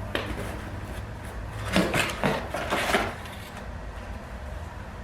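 Parts and packaging from a forge kit being handled: a few rustles, rubs and light knocks clustered in the middle, over a steady low hum.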